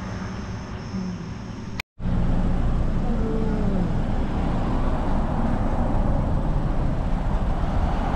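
Steady road and engine noise of a moving vehicle, starting abruptly about two seconds in after a brief cut to silence.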